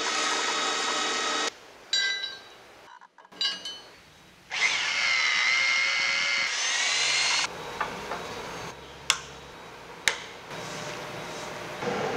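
Power drilling into metal in several short separate stretches: a drill spindle running as the bit cuts, with a pitched whine that shifts as it bites, the longest stretch about three seconds near the middle. Two sharp clicks come in the quieter last part.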